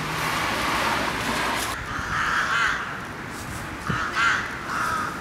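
Crows cawing: a few short, harsh calls, the first about two seconds in and the rest through the second half. A steady hiss underneath drops away after about two seconds.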